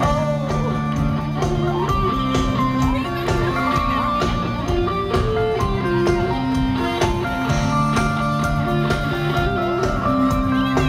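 Rock music with guitar: an instrumental passage of held notes over a moving bass line.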